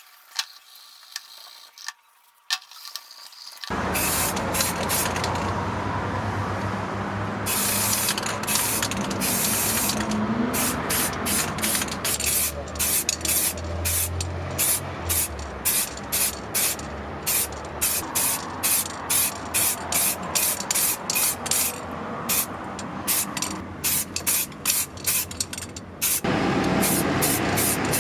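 Paint being sprayed onto a scale model car: a hiss that starts about four seconds in, then short spray bursts repeating about twice a second, over a steady low hum.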